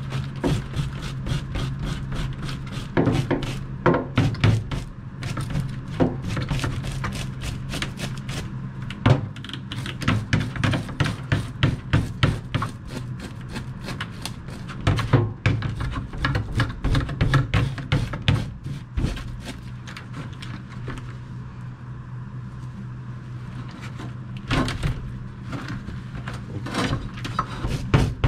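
Kitchen knife scraping the scales off a black rockfish on a plastic tray: a fast run of short scraping strokes and knocks, several a second, easing off briefly about three-quarters of the way through, over a steady low hum.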